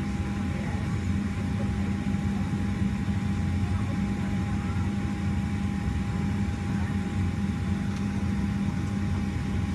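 Steady cabin noise inside a Boeing 737 on the ground before takeoff: an even low rumble with a constant mid-pitched hum running through it.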